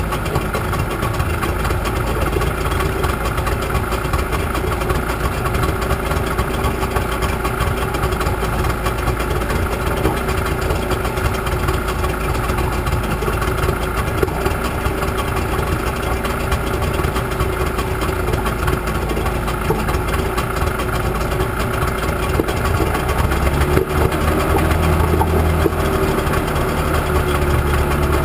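Selva 45 hp outboard motor idling steadily with its leg in a barrel of water, the idle turned up on both carburettors after the engine had stood unused for over a year. About 23 seconds in, the note deepens and grows a little louder.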